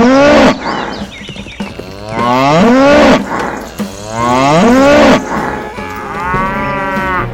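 Cow mooing: three long moos about two seconds apart, each rising and then falling in pitch, then a shorter, higher call near the end.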